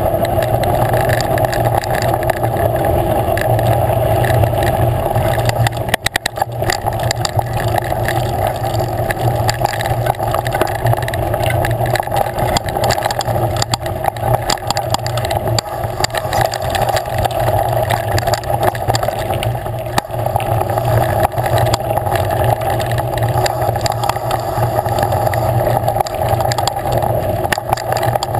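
Mountain bike ridden along a dirt singletrack, recorded by a camera mounted on the bike: steady rushing noise with constant rattling and knocks from the bumps, and a short dip in the noise about six seconds in.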